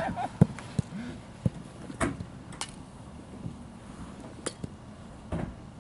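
A football being struck and handled during a goalkeeper drill: a handful of separate short, sharp knocks spread unevenly, about a second apart.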